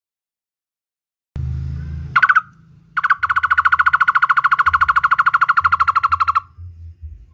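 Barbet (takur) calling: a single loud note, then a fast even run of the same hollow note at about a dozen a second for some three seconds, over a low hum.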